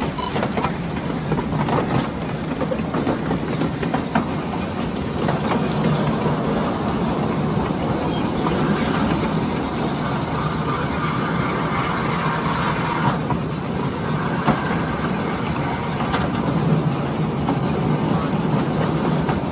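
Ride-on miniature railway train rolling along its track: a steady rumble of the cars' wheels on the rails, with a few sharp clicks.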